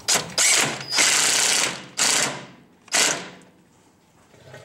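Impact wrench with a 17 mm socket hammering a bolt tight on a Timbren bump stop mount, in about five short rattling bursts.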